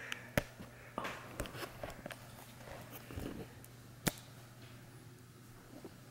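Soft footsteps and rustling as someone creeps through a small room over a steady low hum, with two sharp clicks, one just after the start and one about four seconds in.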